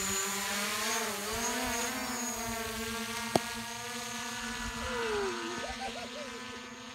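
Quadcopter drone's propellers humming overhead, the pitch dipping and rising about a second in, then slowly growing fainter as the drone climbs away. One sharp click about three seconds in.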